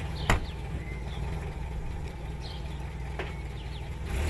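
UAZ off-road vehicle's engine idling with a steady low hum, with one sharp click shortly after the start. The engine gets louder just before the end as the vehicle begins to pull away.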